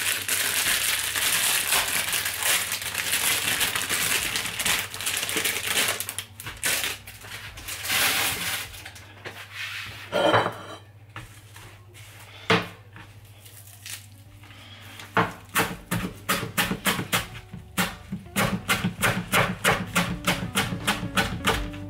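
Plastic herb bag crinkling as fresh coriander is pulled out of it, then a chef's knife chopping the coriander on a chopping board, quick regular chops about three a second through the last several seconds.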